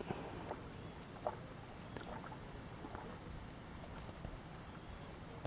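Steady high-pitched drone of insects over quiet lakeside ambience, with a few faint ticks.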